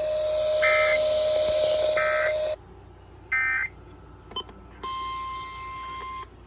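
Weather radio EAS data bursts: three short, warbling electronic bursts about a second apart, over a steady hum and static that cut off abruptly after about two and a half seconds. From about five seconds in a steady, single-pitched weather radio alert tone sounds, briefly cut near the end.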